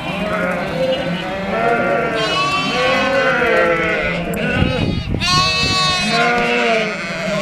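A flock of ewes and lambs bleating constantly, many overlapping calls at higher and lower pitches.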